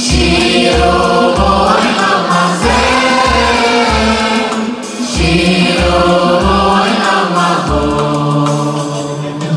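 Male choir singing with a live band of brass, keyboards and bass, over a steady bass beat.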